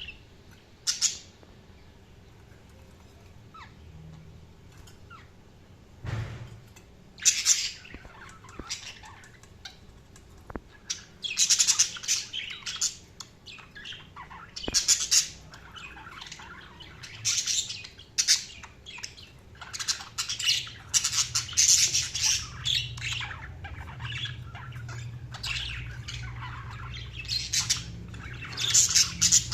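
Budgerigars chirping and squawking, a few scattered calls at first and then a busy, near-continuous run of chirps and harsh squawks from about a third of the way in.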